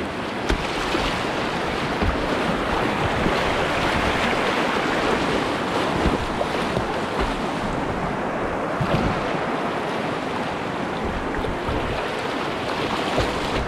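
Whitewater rapids rushing steadily, a continuous hiss-and-roar of moving water, with a few faint low knocks scattered through.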